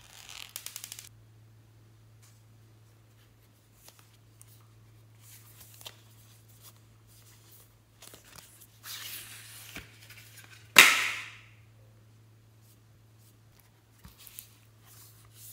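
Handling of a cardboard eyeshadow palette. A quick rattle of small clicks comes near the start. Later there is a rustling slide against the sleeve, then one sharp snap about eleven seconds in as the palette is pulled out and opened, with a few light taps after. A steady low hum runs underneath.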